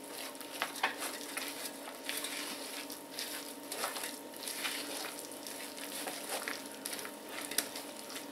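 Metal spoon stirring thick grated-zucchini batter in a plastic bowl, working in freshly added flour: soft, irregular scraping with light taps of the spoon against the bowl.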